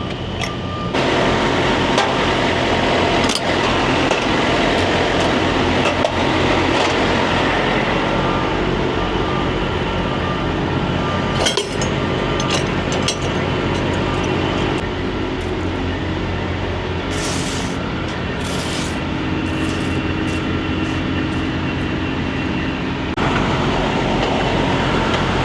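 An engine running steadily, with scattered metallic clinks and a few short hisses about two-thirds of the way in.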